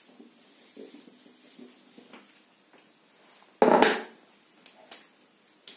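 Marker pen stroking faintly on a whiteboard as words are written, then a single louder knock about three and a half seconds in, followed by a few faint clicks.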